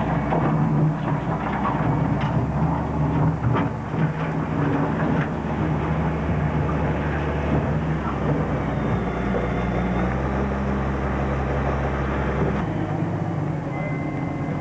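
A heavy engine running steadily at a low pitch, with a few knocks in the first five seconds. Its deepest rumble drops away near the end.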